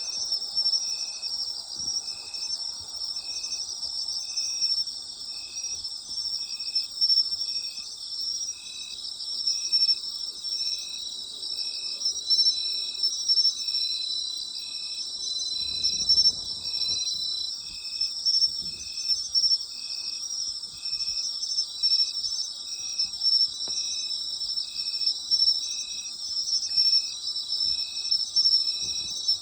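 Night chorus of autumn insects: a dense, steady high trilling, with one insect calling in short, even pulses about once a second. A faint low rumble passes about halfway through.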